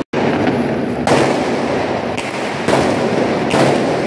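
Aerial fireworks going off close by: about four sharp bangs roughly a second apart, over a continuous crackle. The sound drops out for an instant at the very start.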